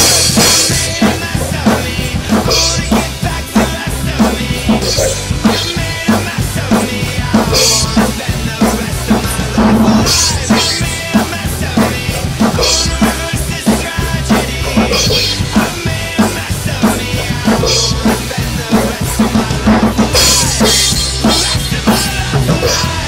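Acoustic drum kit played to a steady beat of bass drum and snare, with crash cymbal hits every couple of seconds, over the instrumental part of a song with sustained bass notes.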